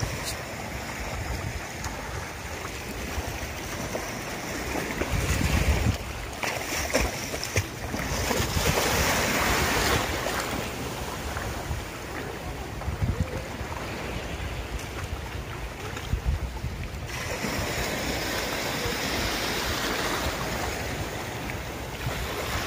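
Small sea waves washing in shallow water, with wind buffeting the microphone.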